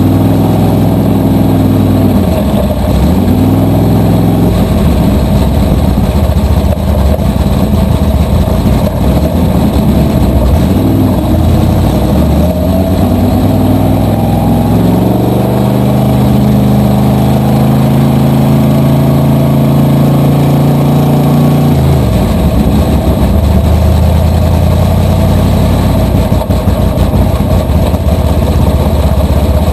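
Small-block V8 engine of a supermodified race car heard from its cockpit, running at low speed with the revs rising and falling. Past the middle the pitch climbs steadily for several seconds, drops sharply, then holds lower and steadier.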